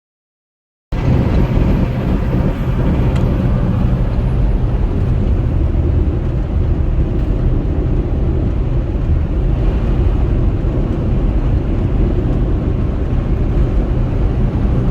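Semi-truck's diesel engine running steadily at highway speed with road noise, heard from inside the cab. It starts abruptly about a second in, after a moment of silence.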